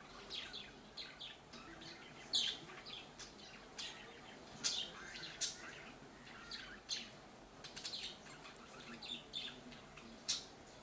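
Budgerigar chirping in short, scattered high calls, a few of them sharper and louder, amid the splashing of its bath in a shallow metal dish of water.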